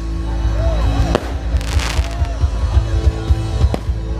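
Fireworks going off in a series of sharp bangs, with a hissing burst about a second and a half in, over steady music.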